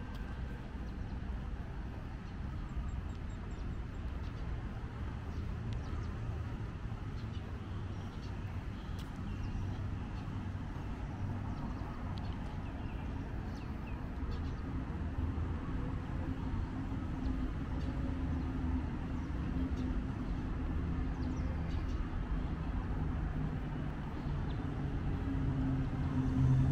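Street ambience: a steady low rumble of road traffic, with one vehicle's engine hum growing louder near the end.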